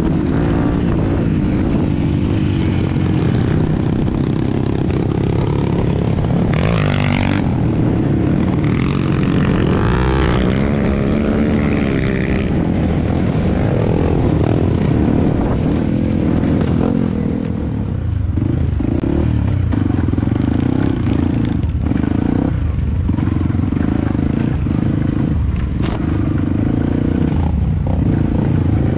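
A Yamaha WR155R trail bike's single-cylinder four-stroke engine running under load, heard from on board. The revs rise and fall with the throttle, and in the second half the engine note breaks off and returns every second or so as the throttle is worked on and off.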